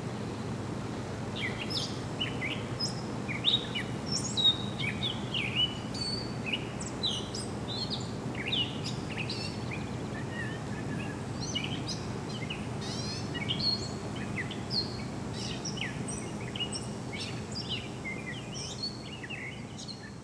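Several songbirds chirping and whistling in short, overlapping calls, over a steady low background rumble. The sound fades down near the end.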